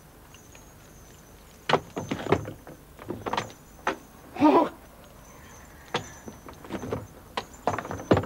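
Irregular hammer blows on a wooden front door as a holly wreath is nailed to it. The blows start about a second and a half in and come faster near the end, with a brief cry in the middle.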